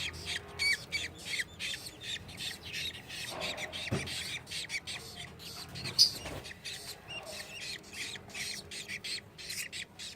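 Budgies squawking and chattering in a fast run of short, high calls, several a second. A sharp knock about six seconds in.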